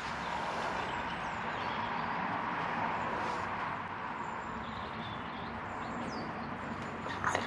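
A few faint, high bird chirps over a steady background hiss.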